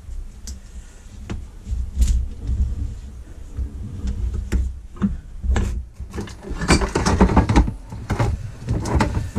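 Ratchet tie-down straps being released from a compressed motorcycle shock absorber spring: a few sharp clicks and knocks from the ratchets over a low rumble. From about six and a half seconds in, a busier stretch of rattling and rubbing follows as the freed spring and shock are handled on the metal bench.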